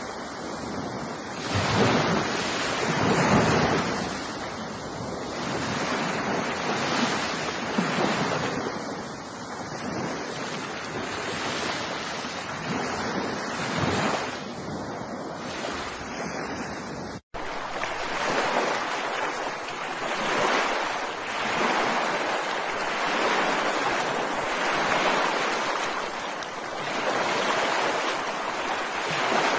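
Ocean waves washing onto a beach, the surf swelling and falling back every few seconds. About two-thirds of the way through there is a split-second dropout, after which the water sound is thinner and hissier, with less of the deep rumble.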